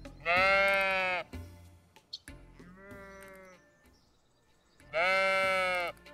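Sheep bleating three times: two loud bleats about a second long each, about four and a half seconds apart, with a fainter bleat between them.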